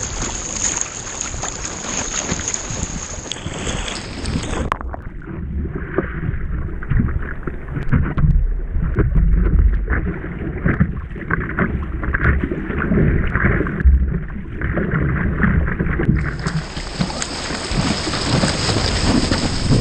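Water splashing and sloshing around a surfboard as it is paddled through ocean swell, close to a board-mounted action camera, with wind buffeting the microphone. From about five seconds in until about sixteen seconds in the sound turns muffled and low, with irregular watery thumps, as water washes over the camera.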